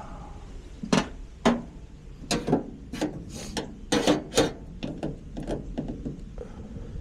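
A string of irregular knocks, clacks and short scrapes, about a dozen between one and six seconds in, the loudest a pair about four seconds in, as tools and parts are handled and knocked together.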